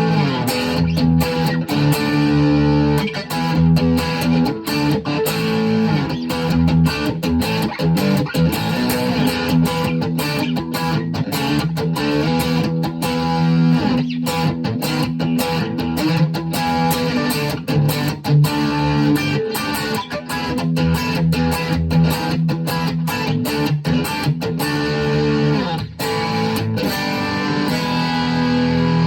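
Schecter OL-PT-TH thinline electric guitar played through a VOX MINI5 practice amp: strummed chords and picked notes, with sharp pick attacks and held chords, ringing out on a long chord near the end.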